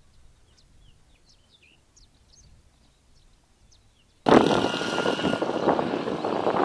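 Faint, scattered small-bird chirps over a quiet rural background. About four seconds in, this switches abruptly to a loud, steady rushing noise.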